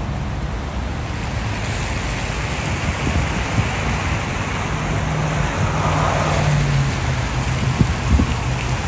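Steady low rumble of slow highway traffic on a rain-soaked road, heard through a car window, under an even hiss of rain and water.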